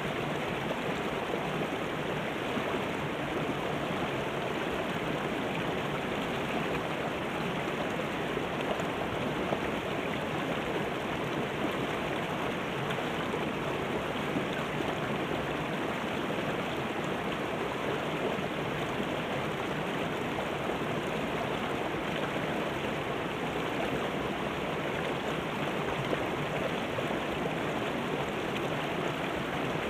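Shallow river water rushing and splashing over rocks and small drops between boulders: a steady, even rush with no change.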